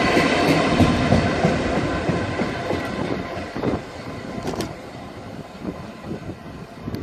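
A passing train fading away, its wheels clattering over the rail joints as it gets further off.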